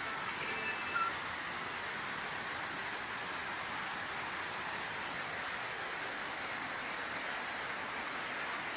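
Steady, even hiss with no distinct events, a break in the surrounding music.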